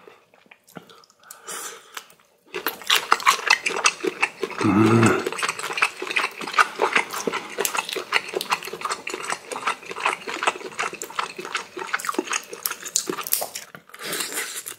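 Boiled shrimp shells cracked and pulled off by hand, a dense run of crisp crackling clicks starting about two and a half seconds in. A short hummed grunt sounds about five seconds in.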